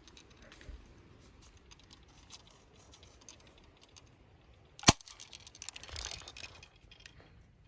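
A single sharp shot from an airsoft pistol about five seconds in, followed by a short rustle of movement.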